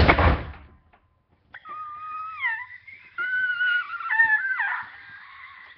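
A loud thump at the very start, then a dog whining: high, wavering whimpers that bend up and down in pitch for about three and a half seconds and fade near the end.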